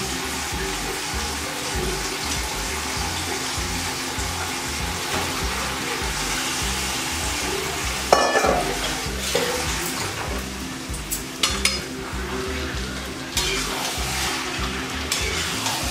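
Chicken frying in oil in a wok on a gas stove, a steady sizzle. There is a loud clatter about halfway through, then a few sharp metal knocks, and a spatula stirring the wok near the end.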